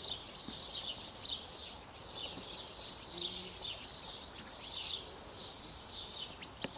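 Birds chirping and singing steadily in a high, busy chorus, with one sharp click near the end.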